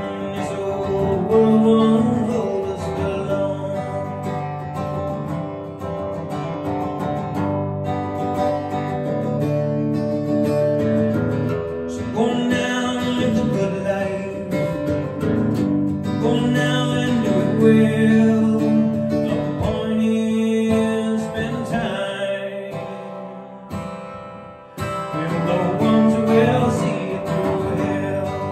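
Strummed acoustic guitar, a Martin DSS-17 amplified through effects pedals and a Turbosound iNSPIRE iP1000 PA, with a man singing along. The music drops away briefly near the end, then the strumming comes back in sharply.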